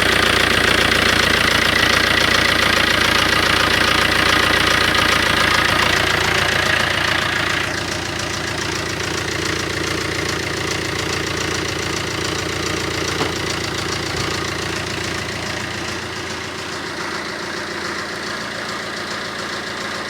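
Fiat Doblo 1.3 JTD four-cylinder diesel engine idling with a knocking rattle that the owner puts down to the timing chain. About a third of the way through the sound gets quieter and the sharper upper noise falls away.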